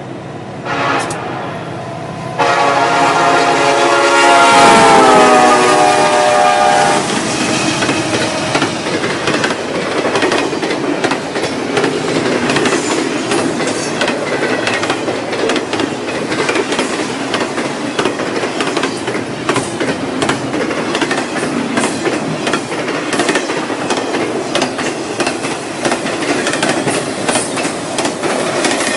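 Norfolk Southern intermodal freight train passing: the locomotive's multi-tone air horn gives a brief blast, then a long one whose pitch drops as the locomotives go by. After that come the steady rumble and clickety-clack of the container cars' wheels over the rail joints.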